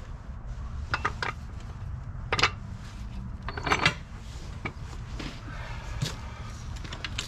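Scattered metallic clinks and knocks as a Ford 8.8 rear axle housing is handled and shifted on its wooden block and steel jack stand, over a steady low background rumble.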